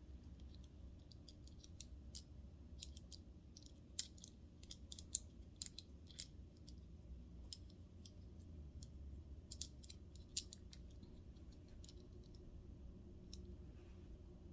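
Irregular light clicks and taps of small metal clutch parts and screws on a Kenmore 158-series sewing machine, handled and fitted by hand, over a faint low hum.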